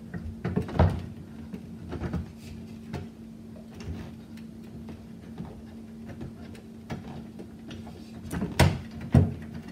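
Light clicks and knocks of a wall sconce being handled while the small pins that screw into the side of the lamp are turned out. A few sharper knocks come about a second in and twice near the end, over a faint steady hum.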